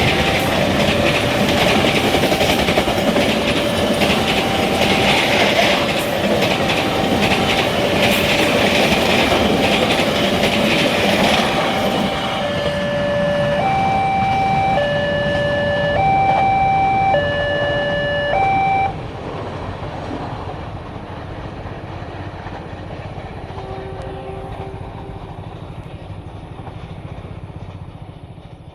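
A train passes over a level crossing with wheels clattering on the rails. Over it, the crossing's automatic early-warning alarm plays a slow two-tone hi-lo signal through a loudspeaker, alternating about once a second. The alarm cuts off suddenly about 19 seconds in, once the train has cleared, and the train's rumble fades away.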